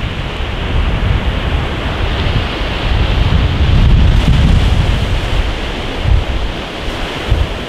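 Surf breaking on a sandy beach, with wind buffeting the microphone in a fluttering low rumble. The wash of the waves swells loudest about halfway through.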